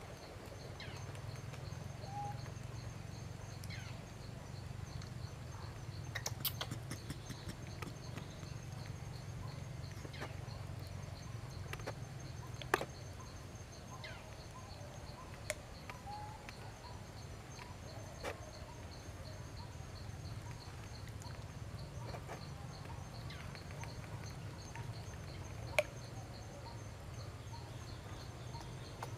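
Outdoor forest ambience around a macaque mother and her nursing newborn: a steady low rumble, insects trilling faintly in a fast pulse, a few sharp clicks and faint brief squeaks or chirps.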